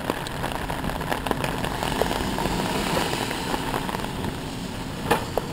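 Rain falling on an umbrella and wet pavement, many drops ticking, over a steady low mechanical hum.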